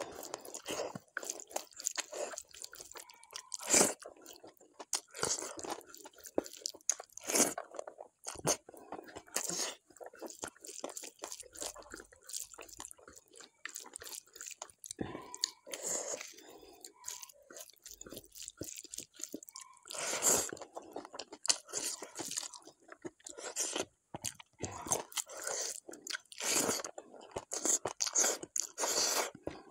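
Close-miked eating sounds as rice and mashed vegetable bharta are eaten by hand: wet chewing broken by irregular crisp crunches.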